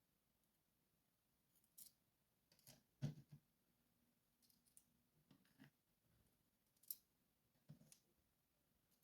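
Faint, scattered small clicks and clinks, about half a dozen, the loudest about three seconds in, as the rotating discs of an Abloy Classic lock core are slid off one by one and set down.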